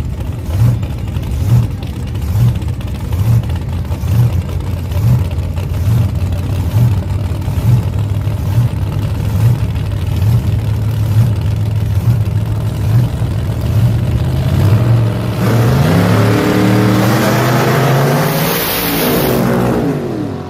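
A V8 drag car at the starting line idling with a heavy, lumpy lope, pulsing about once every three-quarters of a second. About three-quarters of the way in, it launches at full throttle and the engine rises steeply in pitch, then drops as the car pulls away down the strip.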